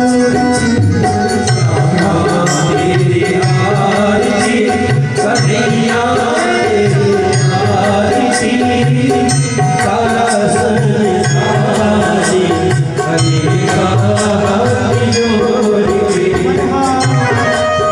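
Indian devotional music with a steady hand-drum rhythm under melodic lines.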